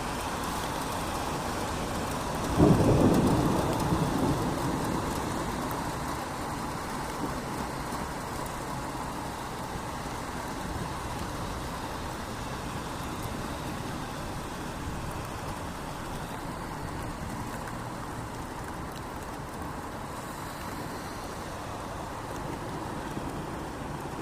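Steady rain with a sudden crack of thunder about two and a half seconds in, rumbling away over the next few seconds.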